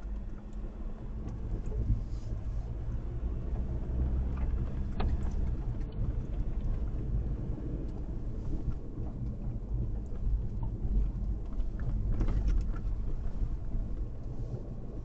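Steady low rumble of a vehicle on the move, with scattered knocks and rattles.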